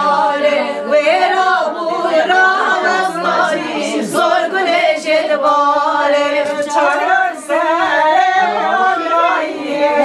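Women's voices singing a Kurdish folk song unaccompanied, with no instruments.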